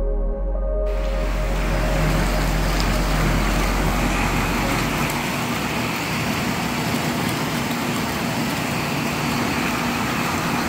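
Background music cuts off about a second in, giving way to a hot tub's jets running: water churning and bubbling in a steady rush.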